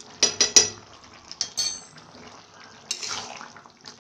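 Steel spoon knocking three times in quick succession against a metal kadai, a ringing clink a little later, then the spoon scraping and stirring through a thick curry.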